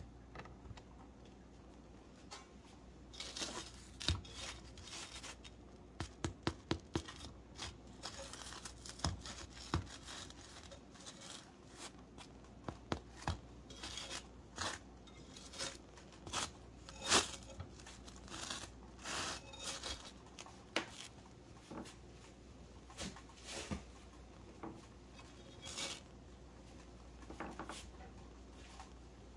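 A string of faint taps and clicks as finished sourdough English muffins are tapped and lifted off a flat skillet; tapped like this, a done muffin sounds hollow inside. A quick run of five or six taps comes about six seconds in.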